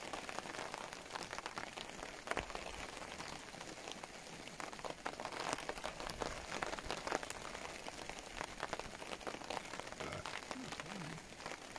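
Heavy rain falling, with many individual drops ticking sharply close by at uneven intervals.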